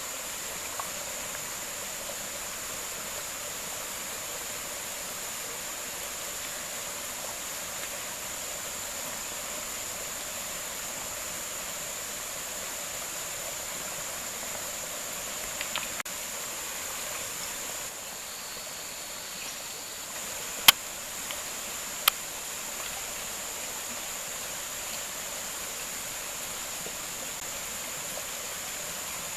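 Steady rushing of a mountain creek, with a constant high-pitched insect drone over it. Two sharp clicks come about a second and a half apart past the middle.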